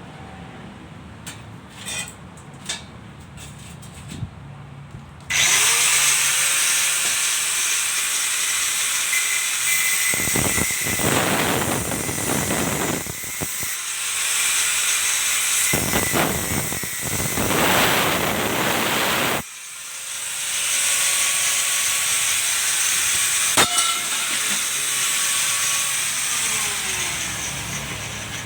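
Electric angle grinder spinning up with a rising whine and working steel with a loud, steady hiss. It breaks off once about two-thirds of the way through, starts again, and winds down with a falling whine near the end.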